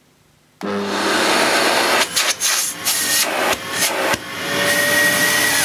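Sebo Airbelt C3 cylinder vacuum cleaner switched on about half a second in, then running with a loud rush of air through the open hose handle while its suction is tested. The air noise dips and flutters several times, and near the end a faint whine rises slightly.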